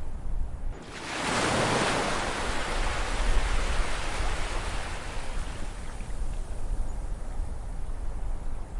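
Ocean waves: a wave breaks about a second in with a surge of rushing surf that slowly fades over several seconds as the wash runs out, over a steady low rumble of the sea.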